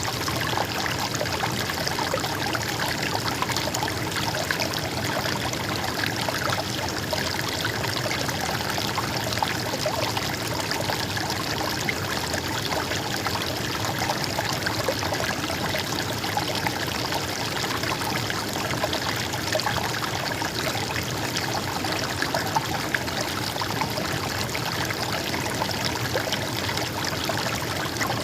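Shallow stream of water babbling and trickling steadily.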